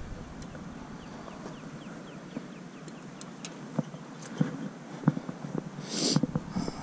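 Footsteps and light handling knocks on a concrete dock over a steady outdoor background, with a brief rush of noise about six seconds in.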